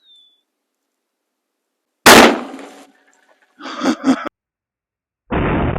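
A single sharp, very loud shot from an FN Ballista bolt-action rifle in .338 Lapua Magnum about two seconds in. A short burst of clattering follows about a second and a half later. Near the end comes a second loud, duller boom that fades away slowly.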